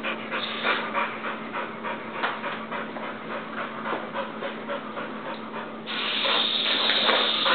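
Boxer dog panting rapidly and hard. About six seconds in, a louder steady hiss sets in under the panting.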